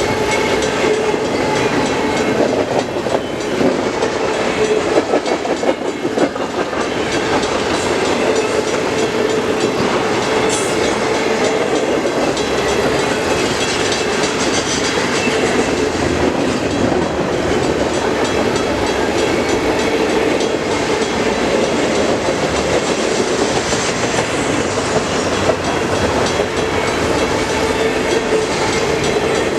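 CN intermodal freight train's cars rolling past steadily, wheels running on the rails.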